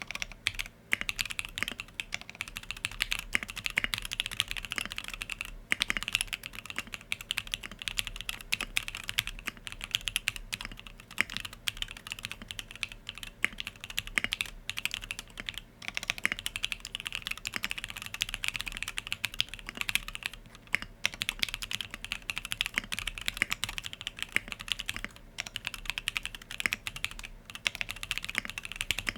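Continuous fast typing on a Sangeo65 custom mechanical keyboard by Monstargear, with lubed SP-Star Yanyu linear switches on an aluminum plate with plate foam. It makes a dense, even run of key clacks, broken by a few brief pauses.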